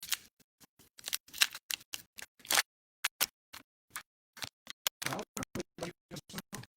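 A foil pack of Donruss Optic baseball cards being torn open and the cards handled: irregular crinkles and clicks, with a brief pause about three seconds in.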